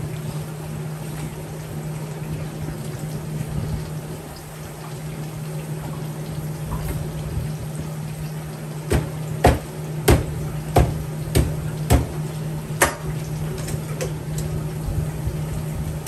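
A knife or cleaver chopping roast pork on a wooden cutting board: about seven sharp chops, roughly two a second, starting a little past halfway. Under them runs a steady low hum.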